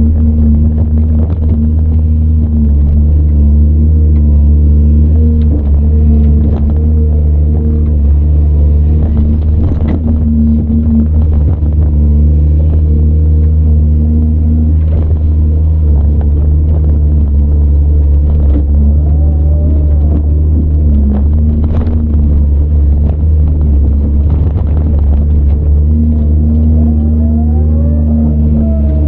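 CAT 395 excavator's Cat C18 diesel engine running steadily under working load, heard from inside the operator's cab, with scattered knocks and a couple of brief wavering whines in the second half.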